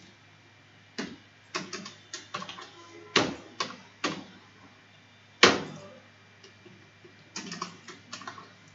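Computer keyboard typing in short, irregular runs of keystrokes, with one key struck noticeably harder about five and a half seconds in.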